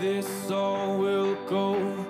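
Background music: a melody of long held notes, briefly broken about halfway through.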